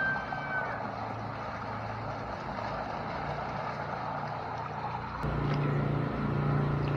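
A water truck's hose jet pouring into an above-ground pool with steady splashing, over the low hum of the truck's engine. About five seconds in the flow stops and the engine hum becomes louder and plainer.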